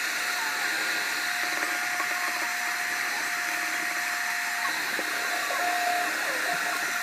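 Electric hand mixer running steadily, its beaters whirring in a plastic cup of pancake mixture with a steady whine. The whine drops in pitch briefly about six seconds in, then comes back up.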